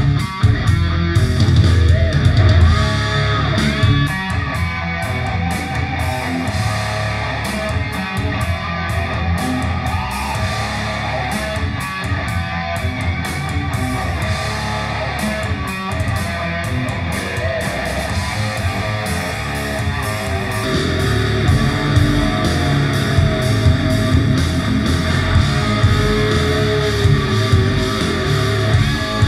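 Guitar-driven rock music with strong bass, played back through Microlab Solo 7c and Solo 6c 2-way bookshelf speakers and picked up in the room, with playback switched between the two speaker pairs partway through.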